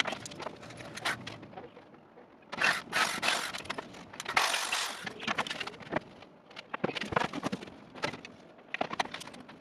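Clicks, knocks and two short scraping bursts from work on melamine-faced chipboard panels and tools, about three and four and a half seconds in.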